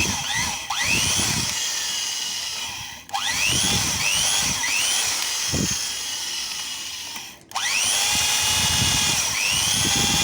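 Electric drill running a 12.5 mm bit through a steel thread coil, its whine repeatedly rising as the motor speeds up. It cuts out briefly about three seconds in and again near the end, spinning back up each time.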